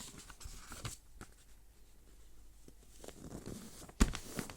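Sheet of paper being handled and creased by hand: faint rustles and small taps, with one sharp knock about four seconds in.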